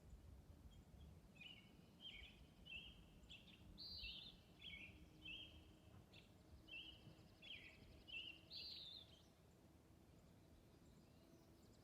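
Faint birdsong: a bird singing a quick series of short chirped notes in repeated phrases for several seconds, stopping near the end, over a quiet outdoor background hiss.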